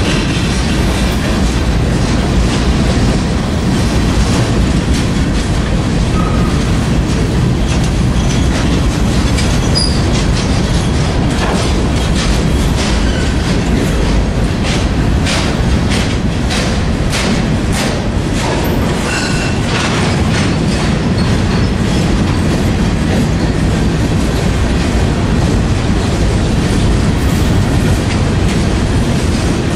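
Freight train rolling past close by: a steady, loud rumble of boxcars and covered hopper cars, with a quick run of wheel clicks over the rails in the middle.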